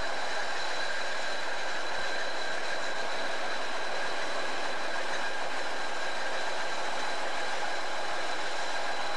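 Small narrow-gauge diesel locomotive running at a standstill: a steady, unchanging mechanical noise with a faint high whine.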